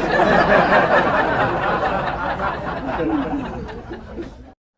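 Canned audience laughter: a crowd laughing together, fading away over about four seconds and then cutting off.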